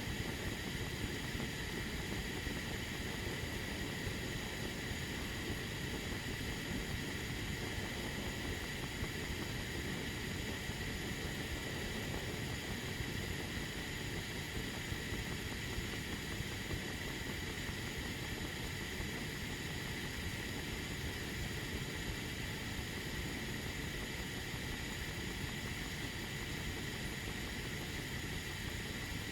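Tea kettle heating water on the stove early in the boil, long before the whistle: a steady, even rumbling hiss with a faint steady high tone.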